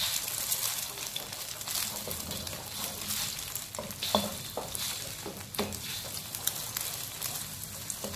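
Beaten eggs sizzling in hot oil in a wok while a wooden spatula stirs and breaks them into a scramble. The steady sizzle is broken by frequent light scrapes and clicks of the spatula on the pan, a few sharper taps about four and five and a half seconds in.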